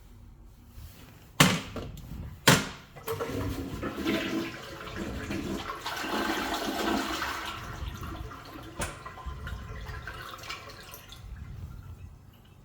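Kyerim Ceramics C-403 toilet being flushed: two sharp clacks, then a rush of water for about eight seconds that fades away near the end.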